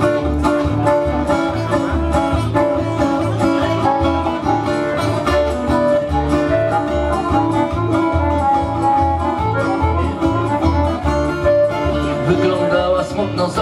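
Accordion and guitar playing an instrumental introduction to a song, with no voice yet. The accordion holds long melody notes over a steady, even beat of about two pulses a second.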